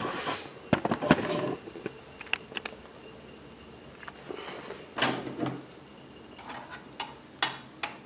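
Handling noises on a wooden workbench: a series of sharp knocks and clicks from tools being moved about, the loudest about five seconds in.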